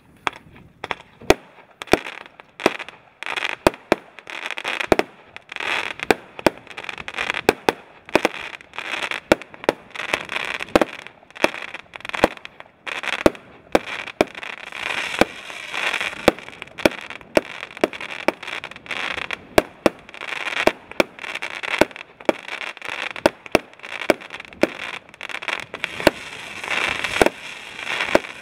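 A 100-shot consumer fireworks cake with 20 mm tubes firing, sharp reports following each other in quick succession, a few a second. Between the reports runs a steady crackling from the crackling tails and bursts.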